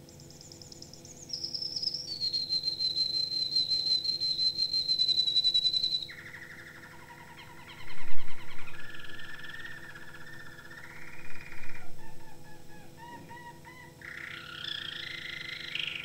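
Recorded birdsong: a long, high, rapid trill, then lower whistled phrases and short repeated chirps, with segments that start and stop abruptly. It plays over a steady low mains hum from the cassette soundtrack, with a low thump about eight seconds in.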